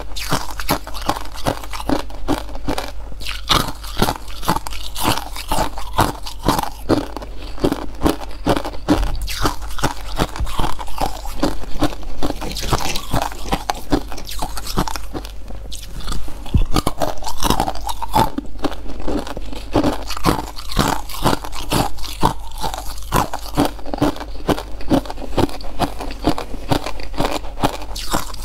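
Hard ice being bitten and chewed close to the microphone: a dense, irregular run of sharp cracks and crunches, with a short lull about halfway through.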